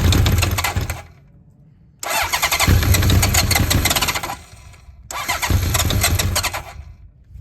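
Electric starter cranking the Honda CB900F's 985cc big-bore inline-four in three bursts without it catching. The first burst ends about a second in, and two more of about two seconds each follow. It is a cold start after months of standing, with no choke on the flat-slide carburettors, the throttle twisted to prime before each try.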